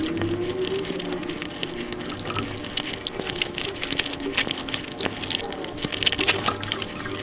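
Close-miked eating sounds of sweets played back at five times speed: a dense, irregular run of wet chewing, smacking and slurping clicks.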